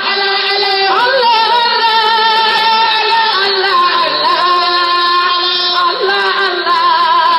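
Religious singing: a voice holding long, ornamented notes with a wavering vibrato over a steady lower held tone.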